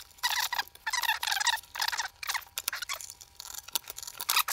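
Plastic case parts of a Sharp PC-G850 pocket computer being pulled apart and handled: a quick run of clicks, creaks and short squeaks.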